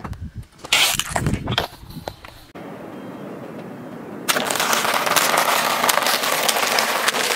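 A car tyre rolling over and crushing a row of waffle ice-cream cones: a dense crackle of snapping wafer that starts about four seconds in and keeps going. Before that come shorter separate crackles and knocks as the tyre presses on a plastic tube.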